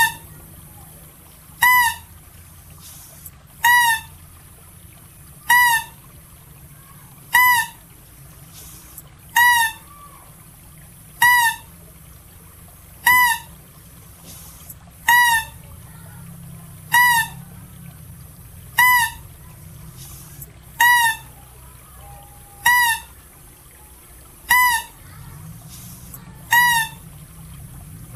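Philippine mouse deer (Balabac chevrotain) call, repeated as a steady series of short, high-pitched notes about one every two seconds. Each note briefly rises and falls in pitch. A faint low hum sits underneath.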